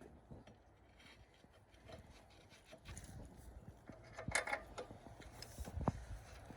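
Faint clinks and taps of metal parts being worked on a car's rear axle beam, with two sharper knocks near the end.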